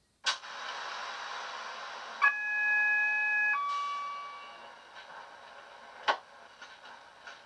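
Coastal DCC Class 47/4 sound file playing through a Vitrains Class 47 model's small megabass speakers. A click and a hiss come first, then the Class 47's two-tone horn sounds a steady high note followed by a lower note that fades away, and a single click comes near the end.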